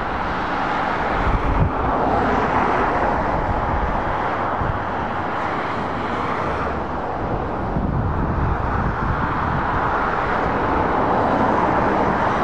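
Road traffic on a dual carriageway: a steady hiss of tyres on the road with the diesel engine of an approaching Scania S 500 articulated lorry. It grows a little louder near the end as the lorry comes closer.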